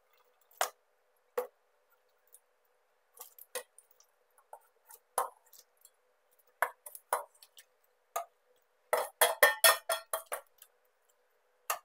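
Metal spoon clinking and scraping against a stainless-steel mixing bowl and pot as pieces of marinated tilapia are spooned and tipped in: scattered sharp clinks, with a quick flurry of them about nine seconds in.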